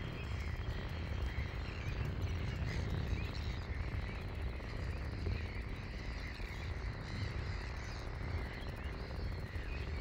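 Strong wind buffeting the phone's microphone, a steady low rumble, with faint high animal chirps in the background.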